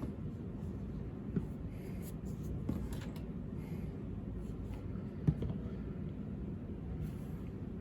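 Light handling noise: faint rubbing and a few small taps over a steady low hum, the sharpest tap a little past the middle.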